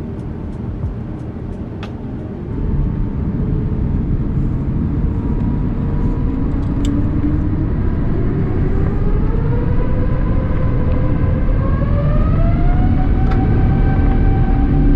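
Airbus A350's Rolls-Royce Trent XWB engines spooling up for takeoff: a deep rumble grows louder about two seconds in, and a whine rises steadily in pitch before levelling off near the end.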